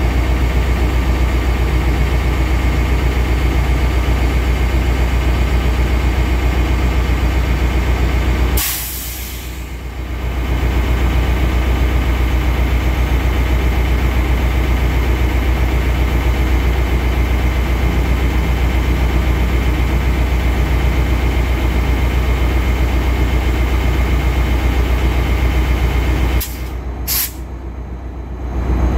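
Commuter train's diesel locomotive idling with a steady low rumble. A sharp hiss of released air comes about a third of the way in, and two more come close together near the end, each followed by a short dip in the rumble.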